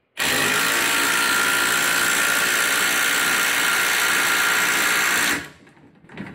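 Metabo HPT cordless impact driver running in reverse, hammering steadily to back a socket-driven fastener out of wood. It starts suddenly and runs loud for about five seconds, then stops.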